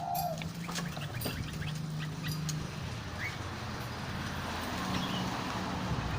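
Caged songbirds chirping sporadically: short scattered calls and clicks with a brief rising chirp, over a steady low hum.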